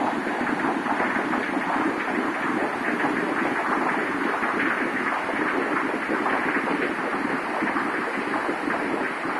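The Alaknanda river in flood, muddy water rushing steadily over rocks and boulders in a continuous, even noise.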